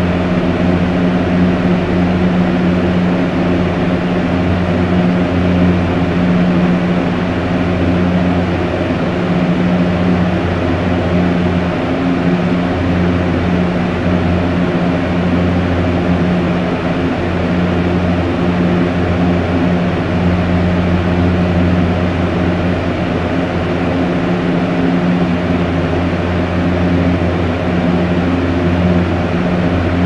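Fan running steadily: an even rush of air with a steady low hum beneath it.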